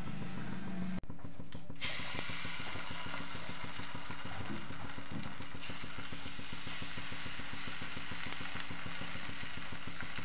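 A steady mechanical hum with a hiss over it, running evenly with a fine regular pulse, broken only by a brief dropout about a second in.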